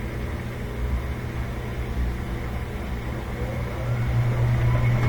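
Miele W1215 Touchtronic washing machine spinning its drum on the spin of a silk cycle: a steady motor hum with a faint rising whine. About four seconds in, the spin picks up speed and grows louder.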